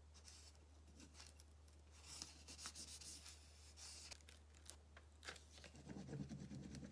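Faint scratchy rubbing of a burnishing stick over the backing sheet of a rub-on transfer pressed against a painted terra cotta pot, with a few light clicks. This is the rubbing that transfers the decal onto the pot.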